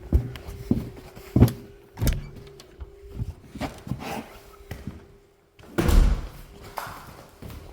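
Scattered knocks and thumps of someone moving about and handling things, with the loudest thump about six seconds in. Under them runs a steady hum from the running hydro turbine, which drops away briefly just before that thump.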